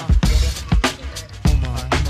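Hip hop music playing loud, with a heavy kick drum and sharp snare hits and a bending melodic line in the second half.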